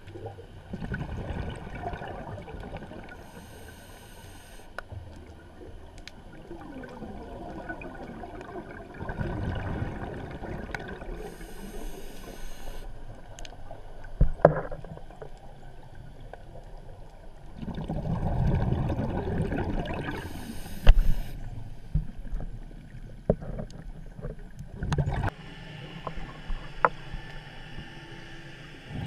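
Scuba diver breathing through a regulator, heard underwater: a rush of bubbles on each exhale and a high hiss on each inhale, about every eight seconds. A few sharp knocks come in between.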